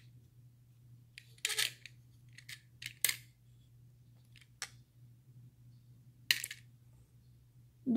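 Plastic LEGO bricks of a small model clicking and tapping on a tile floor as it is handled, pressed and picked up: a handful of sharp, separate clicks, the loudest about six seconds in.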